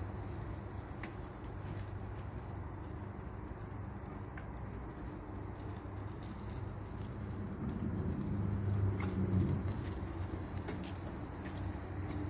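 Small wood fire crackling in a homemade sheet-metal stove: scattered sharp pops over a steady low rumble that swells about eight to ten seconds in.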